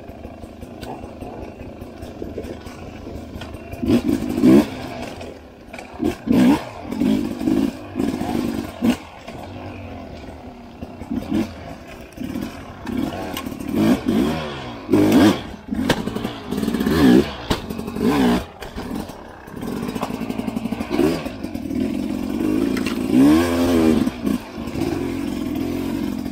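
Enduro dirt bike engine revving up and dropping back again and again in short bursts as it is ridden, with clattering knocks from the bike over rough ground.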